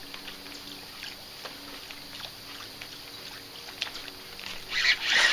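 Topwater popper being worked across the water surface, with faint light ticks and splashes, then about five seconds in a sudden loud splashing as a small smallmouth bass strikes the lure at the surface.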